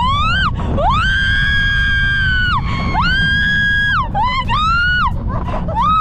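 A woman screaming in a string of long, high-pitched cries on a mountain coaster, each cry rising at the start and falling away at the end. Under them runs a steady low rumble of the sled on its track and wind on the microphone.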